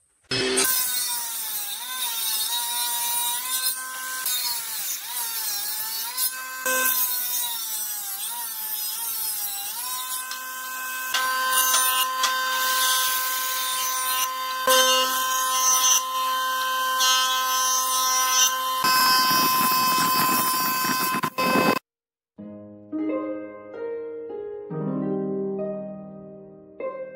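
Woodworking machines running and cutting wood. First comes a table saw whose whine dips and recovers in pitch as the blade cuts; from about ten seconds in, a jointer runs with a steady whine that grows louder and rougher near the end as a board passes over the cutter head. The machine noise cuts off suddenly and plucked harp music follows.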